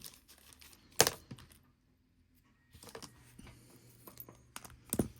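Small clicks and taps of watch parts and tools being handled and set down, the sharpest about a second in and another near the end, with light rustling between.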